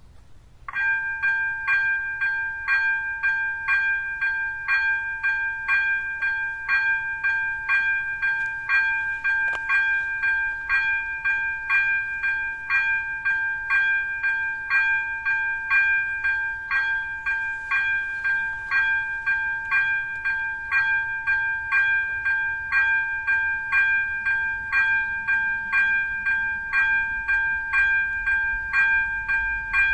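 Electronic level-crossing bell (type Elektronický 02) at an AŽD 97 crossing signal, starting about a second in and ringing on in a fast, even, bright multi-tone ding. It is the warning that a train is approaching and the crossing is closed.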